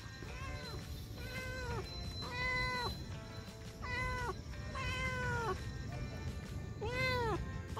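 Calico stray cat meowing repeatedly, about six short meows, each rising then falling in pitch, with the loudest near the end. She is a hungry stray, and the calls come as she walks up to a person.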